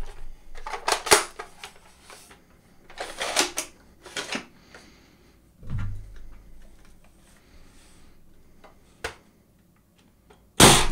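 ZWQ S100s Baize bolt-action foam-dart blaster being primed and fired. The bolt and parts clatter with a series of sharp plastic clicks and rattles, then a low knock and a lone click, and near the end a loud, sharp shot.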